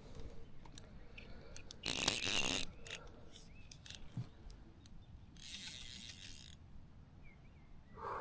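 Fishing reel running in a short, rapid whirring burst about two seconds in, with small clicks around it and a brief hiss later on.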